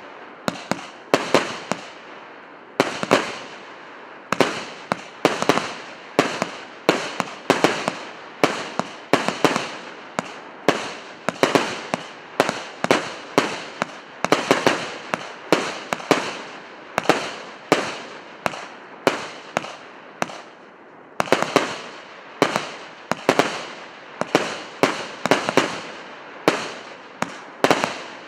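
A 100-shot, 1.2-inch firework cake firing its shots in quick succession, about two bangs a second, each trailing off briefly. Twice the firing pauses for about a second.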